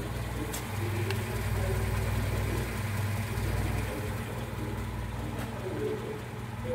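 A steady low mechanical hum, like an engine idling, that swells and dips, with two light clicks about half a second and a second in.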